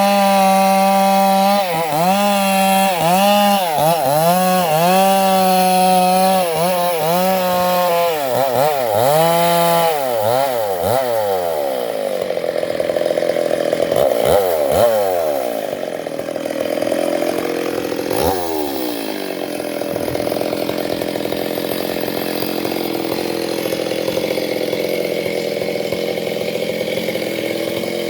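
Chainsaw cutting teak: the engine runs at high revs, its pitch dipping again and again as the chain bites into the wood. Around the middle the revs fall away in several slides, and a steadier, quieter running follows.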